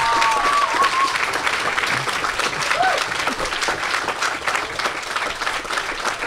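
Audience applauding, many hands clapping at once, with a few cheers in the first second; the applause slowly dies down toward the end.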